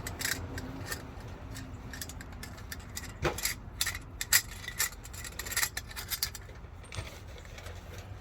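Irregular metal clicks and clinks of the Cat Clamp catalytic converter lock's parts being handled and taken apart, coming thicker in the second half.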